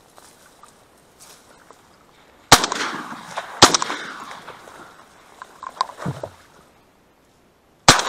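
Shotgun fired at flying ducks: two shots about a second apart, each echoing, then a third shot near the end.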